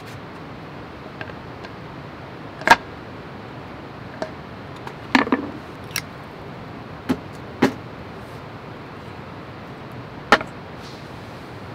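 About eight sharp knocks and clicks at irregular intervals over a steady background hiss, the loudest a little under three seconds in and a double knock around five seconds.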